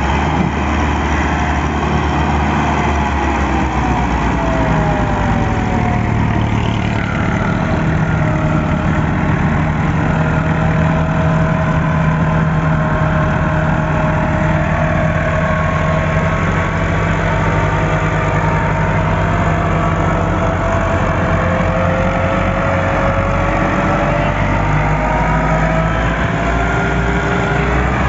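Massey Ferguson 385 tractor's four-cylinder diesel engine running under heavy load as it pulls a loaded sugarcane trolley out of soft ground. The deep engine note is steady, with a fainter whine that slowly rises and falls.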